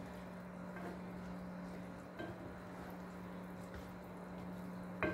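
Faint soft squelching of spaghetti in a cream sauce being turned over in a pan with a spoon and fork, over a low steady hum.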